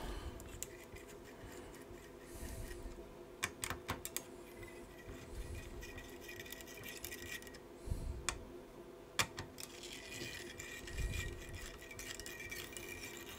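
Scattered faint clicks, taps and small knocks of hands and a screwdriver working at the metal heatsink on an iMac's graphics card, with a few sharp clicks and soft knocks among them.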